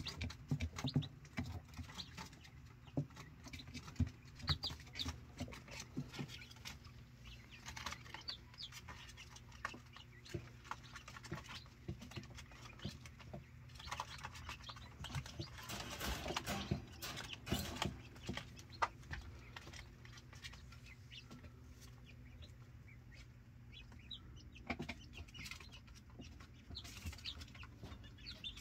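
Young chicks pecking at feed in a shallow dish, a rapid scatter of small taps, with occasional short high peeps. A steady low hum runs underneath.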